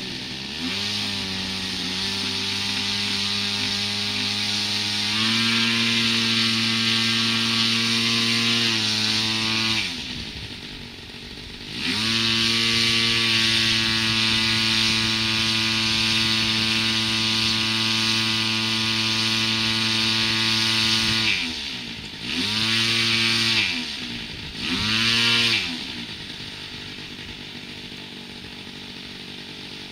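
Single-cylinder engine of a large RC model airplane run up on the ground: it rises from idle to high revs and holds, steps higher, drops back to idle, then is run up again and held for about nine seconds. After that come two short throttle blips and a settle to a steady idle near the end.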